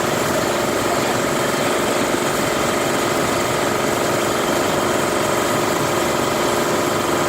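Concrete recycling machine running with a steady, even mechanical drone.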